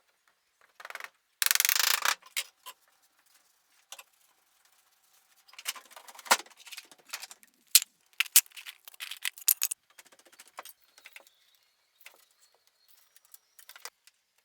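A short, loud rasping burst, then a run of light clicks, taps and knocks: hand work with tools and wood.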